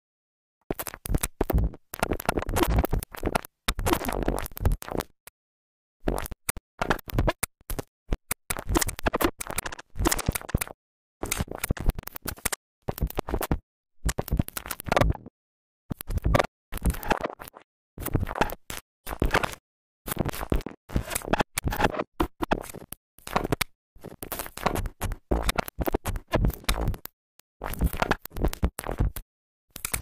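Experimental noise music: dense, scratchy, crackling bursts that stop abruptly and start again after short silences, about every one to two seconds.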